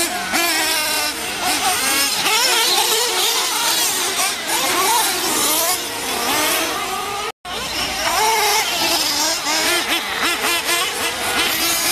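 Several nitro-powered RC truggies racing, their small two-stroke glow engines revving up and down in overlapping rising and falling whines. The sound cuts out for a moment about seven seconds in.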